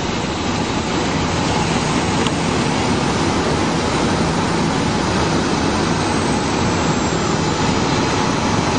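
Light plane's piston engine and propeller running steadily, heard from inside the cockpit.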